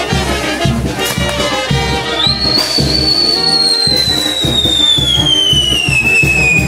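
Brass band music with a steady drum beat. About two seconds in, a whistling firework starts a long, clear whistle that rises briefly and then slowly falls in pitch.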